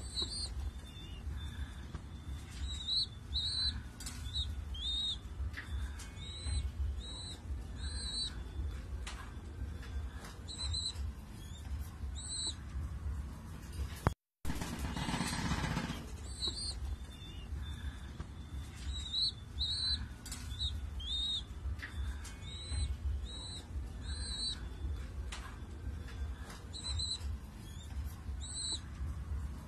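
Pigeon squabs squeaking: short, high chirps, often in quick groups of two or three, over a low rumble. The sound drops out briefly about halfway through.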